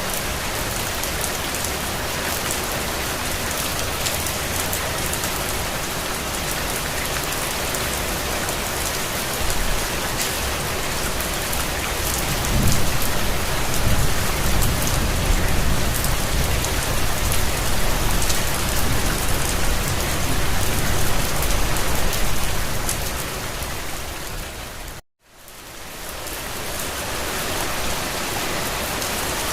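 Steady heavy rain falling, a dense even hiss full of drop patter. About halfway through a low rumble swells up and lasts several seconds. Near the end the sound cuts out completely for a moment, then fades back in.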